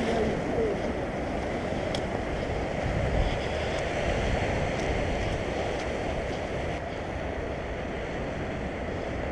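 Sea surf washing over a rocky shoreline in a steady rush, with wind buffeting the microphone.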